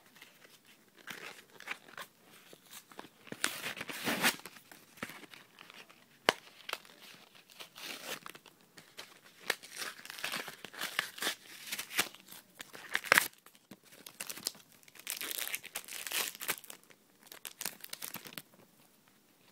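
Foil wrapper of a Yu-Gi-Oh booster pack being torn open and crinkled by hand, in irregular bursts of crinkling with a few sharp snaps.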